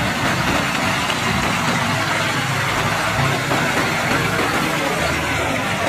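Steady engine running sound, like a truck idling, with a low rumble under an even noise.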